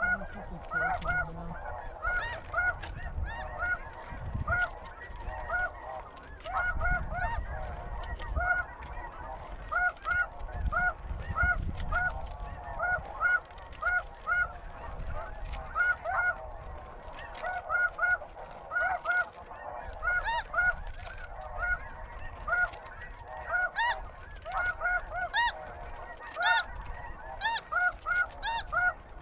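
Snow geese calling: a continuous chorus of short, high honks, many overlapping.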